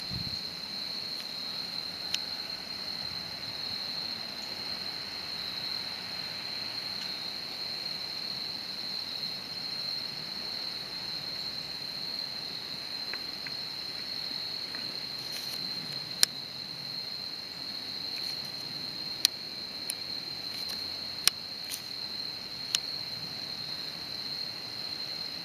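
Crickets trilling in a steady, high-pitched chorus without a break. A few sharp clicks come in the second half.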